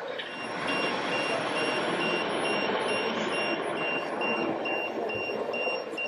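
Electronic warning beeper from a radio-controlled construction model's sound module, beeping steadily about twice a second in a high single tone, like a reversing alarm. The beeping runs over a steady background din.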